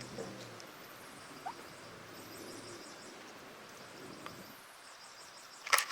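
Faint birdsong: quick, rapidly repeated high chirps. There is one sharp click near the end.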